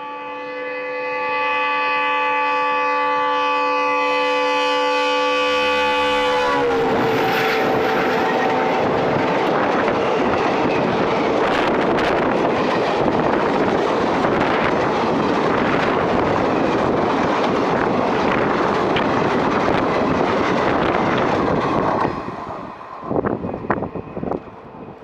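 A WDM3D diesel locomotive's horn honks loudly as a steady multi-note chord, its pitch dropping as the locomotive passes about seven seconds in. Then comes the loud rushing clatter of the passing train's coaches, which stops suddenly about 22 seconds in, followed by a few knocks.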